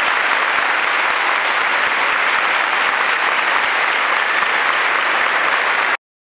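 Audience applauding steadily at the end of a live tango piece, cut off abruptly about six seconds in.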